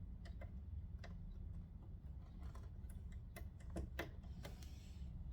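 Light, irregular clicks and taps of sewing machine parts being handled while the presser foot is changed.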